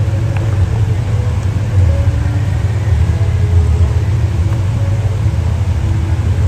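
Steady low rumble of a 4x4 off-road vehicle driving along a dirt trail, its engine running at an even pace.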